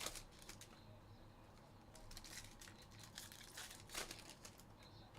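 Foil wrappers of baseball card packs crinkling and being torn open, with cards handled between them; the sharpest crackles come right at the start and about four seconds in.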